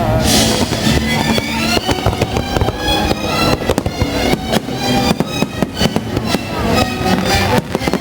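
Fireworks going off in a rapid, irregular string of bangs and crackles, over music playing.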